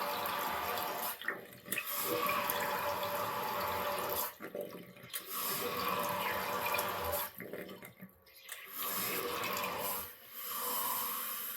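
Toto toilet running water after a flush: water rushes through in surges that drop away and come back about every three seconds, with a wavering whistle over the flow. It is the toilet's abnormal flushing noise, which the owner traces to a part of the bowl filler and fill valve assembly that is falling apart.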